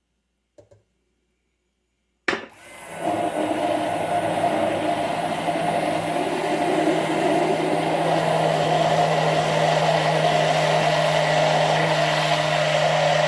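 Immersion blender switched on with a sharp click about two seconds in, then running steadily as it emulsifies aquafaba and avocado oil into mayonnaise.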